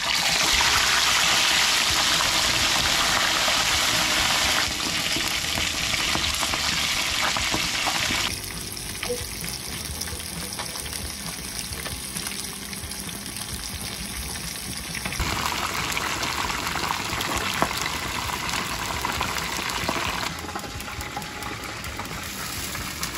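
Whole peacock razor wrasse deep-frying in hot oil in a wok, a steady loud sizzling. The sizzle changes level abruptly several times.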